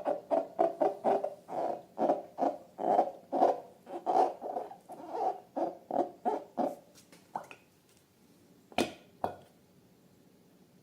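Rubber balloon squeaking in a quick run of short squeaks, which stops about two-thirds of the way through; two sharp clicks follow near the end.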